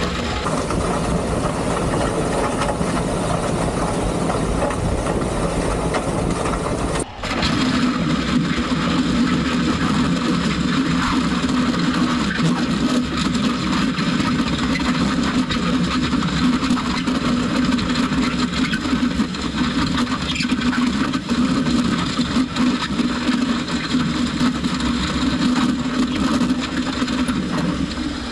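Tractor engine running under load while a land plane drags crushed gravel, the stone grinding and rattling continuously. The sound drops out for a moment about seven seconds in, then runs on steadier, with a strong low drone.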